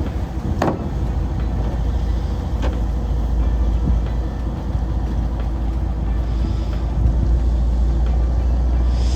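Fishing boat's engine running steadily with a deep hum, with a couple of sharp knocks.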